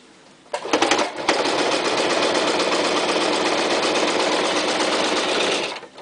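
Toyota Super Jeans J34 domestic sewing machine stitching through four layers of tough vinyl. It starts in a few short stutters about half a second in, then runs steadily at speed for about four and a half seconds and stops near the end.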